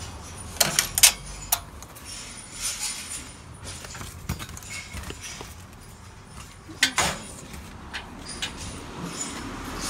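Sharp clicks and knocks of a door being unlocked with a key card and opened: a quick cluster of clicks about a second in and another loud click near seven seconds.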